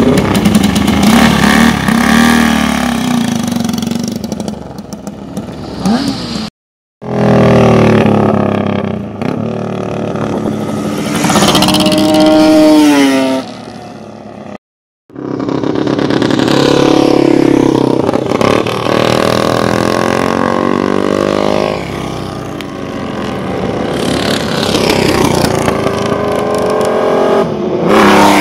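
Racing motorcycle engines running at high revs, the pitch climbing and dropping as the bikes accelerate, change gear and pass by. The sound breaks off into silence twice.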